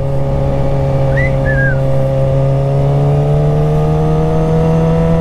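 Suzuki GSX-R sportbike engine running at a steady cruise, heard from the rider's position over a low rumble of wind noise on the microphone. Its pitch rises gently from about three seconds in as the bike picks up speed. Two short high chirps sound about a second in.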